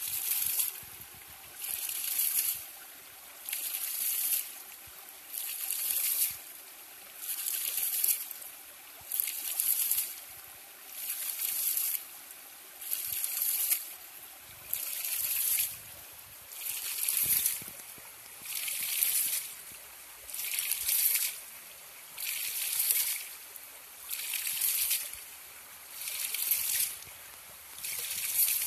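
A 2-inch PVC hydraulic ram pump cycling: water gushes out of its open waste valve in a burst of under a second, then cuts off as the valve slams shut and the flow is driven up into the pump. The splash-and-stop repeats steadily, about once every 1.8 seconds.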